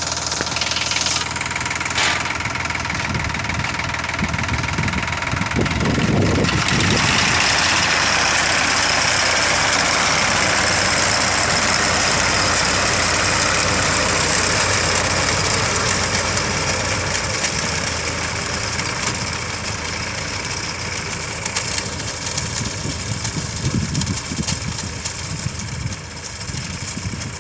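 Engine of a rice-harvesting machine running steadily, growing louder with a rushing noise about a quarter of the way in, then easing off in the second half.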